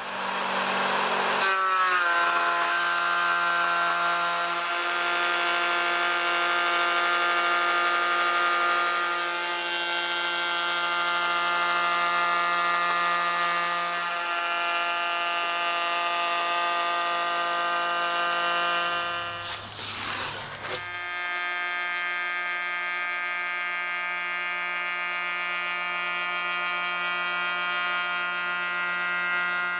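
Porter-Cable hand-held router with a bearing-guided flush-trim bit spinning up with a rising whine, then running at a steady high whine while trimming a wood edge strip flush with the table top. The whine breaks off briefly about two-thirds of the way through and then carries on.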